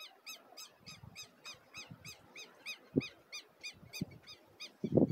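A steady series of short, high squeaky chirps, a little under four a second, each rising and falling in pitch, stopping shortly before the end. A few dull knocks come through, the sharpest about three seconds in and several more near the end.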